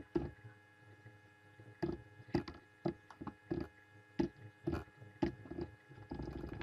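Computer keyboard keystrokes, slow and separate, about half a second apart, with a quicker run of keys near the end, over a faint steady hum.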